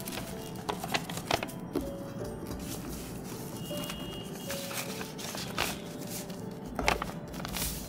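Paper rustling and crinkling as a paper-wrapped sticker packet is handled and slid into a white paper envelope, with a few sharp crinkles; the loudest comes near the end.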